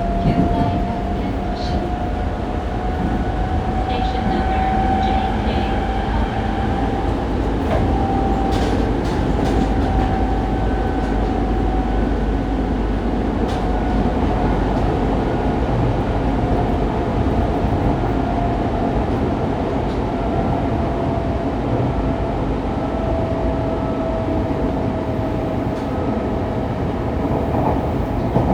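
Interior running sound of a Fukuoka City Subway 2000 series train fitted with Hitachi GTO-VVVF inverter control, travelling at speed between stations. A steady whine wavers slightly in pitch over a continuous wheel-and-track rumble, with a few faint clicks.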